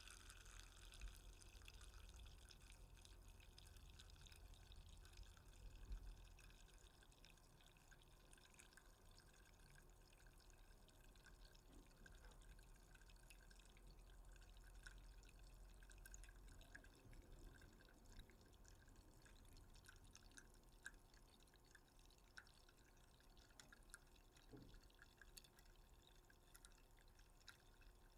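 Faint fizzing of a just-opened can: tiny irregular crackles and pops of bubbles settling in the liquid.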